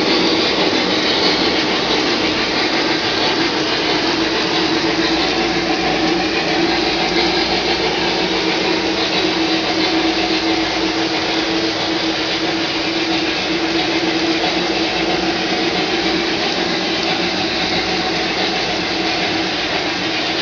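Lionel O-gauge model trains running on three-rail track: a steady whir and rumble of the locomotives' motors and wheels, with a constant hum.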